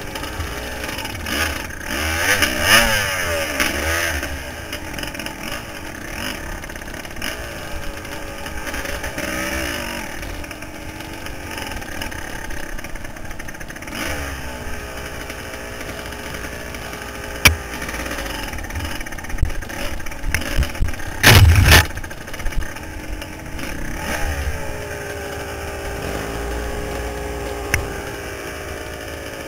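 Dirt bike engine revving up and down while riding through dense brush, with scattered knocks and clatter and a loud thump about two-thirds of the way through.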